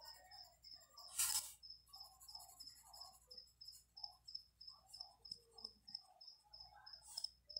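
A cricket chirping steadily, about three short high chirps a second. A brief louder scratch comes about a second in and another near the end.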